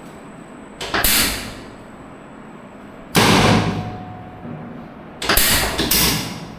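Loud thuds of chiropractic adjustment thrusts: one about a second in, one about three seconds in, and two in quick succession near the end, each dying away over about half a second.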